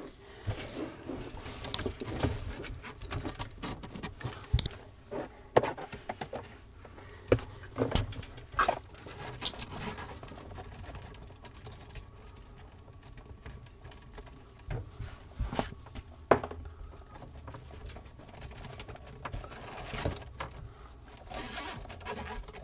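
Braided stainless steel faucet supply lines being worked through a hole in a cabinet wall: the metal fittings clink and rattle and the hoses scrape, with scattered sharp knocks.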